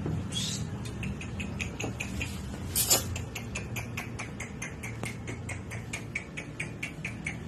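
Small white dog whimpering in a run of short, high squeaks, about three or four a second, with one louder sharp sound about three seconds in.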